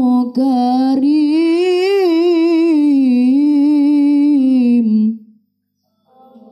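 A boy's voice reciting the Quran in melodic tilawah style, holding one long ornamented phrase whose pitch wavers up and down, breaking off about five seconds in. A soft, steady held note starts near the end.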